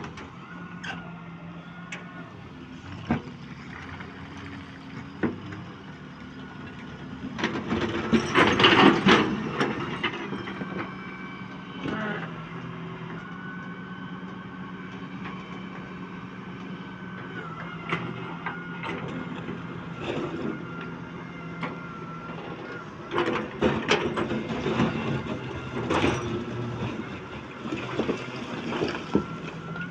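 A heavy construction machine's engine running steadily under load, with a high whine that rises and holds. A few sharp knocks come early, and louder clattering and scraping stretches come about a third of the way in and again near the end.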